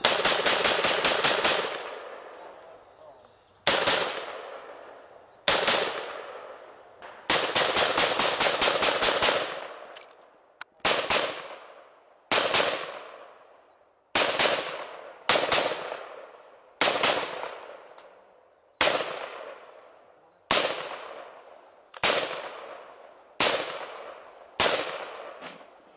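Rifle gunfire: a rapid string of many shots at the start and another about seven seconds in, then single shots every second or two. Each shot trails off in a long echo.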